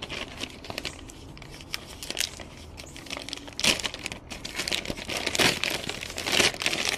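Thin plastic mailer bag being torn open and crumpled in the hands: irregular crinkling and crackling that gets louder in the second half.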